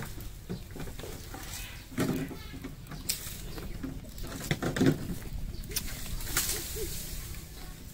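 A person eating from a plate with a spoon: several sharp clicks of the spoon against the plate, and chewing and mouth sounds, with birds calling in the background.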